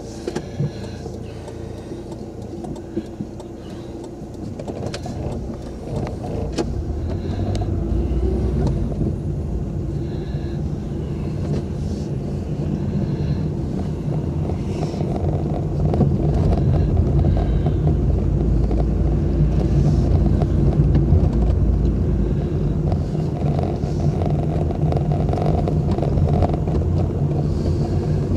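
A car's engine and road noise heard from inside the cabin while driving, getting louder over the first quarter-minute as the car picks up speed, then holding steady. A few sharp clicks sound in the first several seconds.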